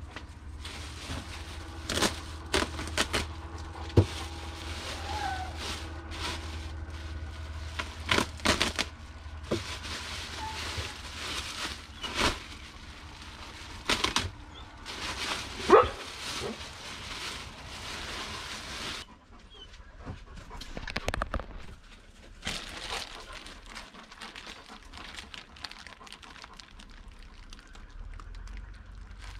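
Plastic bags crinkling and rustling as they are opened and rummaged through by gloved hands, in irregular crackling bursts with a few sharp knocks. The rustling is busiest over the first two-thirds and turns quieter near the end.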